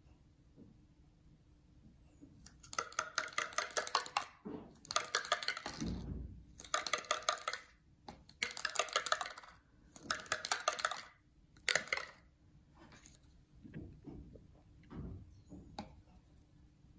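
A die rattling inside a clear plastic cup as it is shaken, in about six bursts of rapid clicking, followed by a few lighter knocks as the cup is set down on a wooden table.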